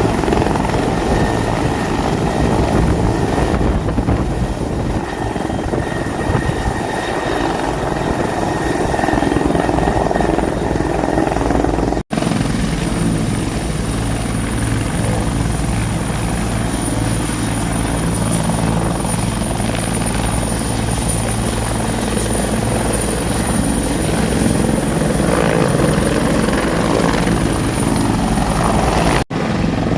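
Bell 412 helicopter running: a steady rotor beat with turbine noise and a thin high whine. The sound drops out abruptly for an instant twice, about twelve seconds in and near the end.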